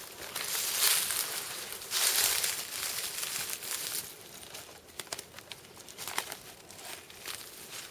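Rustling and crinkling noise, louder in two stretches in the first half, then quieter with scattered sharp clicks.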